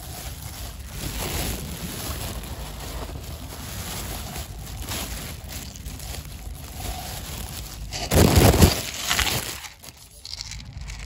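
Plastic carrier bag rustling and crinkling as it is handled, with a loud burst of rustling about eight seconds in.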